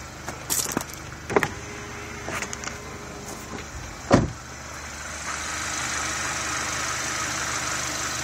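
A vehicle idling with a steady low hum, with knocks from handling about one and a half seconds in and a loud door-like thump about four seconds in. After that a steady hissing rush joins the idle.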